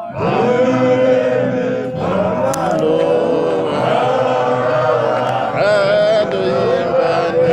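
A group of voices singing a Marange apostolic church gospel chant in harmony, coming in loudly right at the start.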